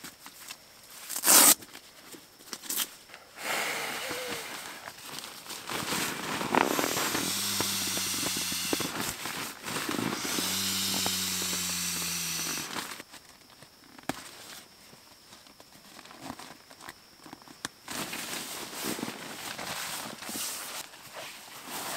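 Air being squeezed from a pump sack into an inflatable sleeping pad: two long rushes of air of about two seconds each, with a steady low hum under the hiss. Nylon tent and bag fabric rustles around them, with one sharp, loud crackle about a second and a half in.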